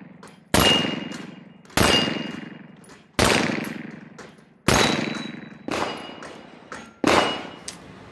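A World War I-style Colt 1911 .45 ACP pistol fired six times at an unhurried pace, roughly one shot every one to one and a half seconds, each shot echoing for about a second. Some shots are followed by a short metallic ring from steel plate targets being hit.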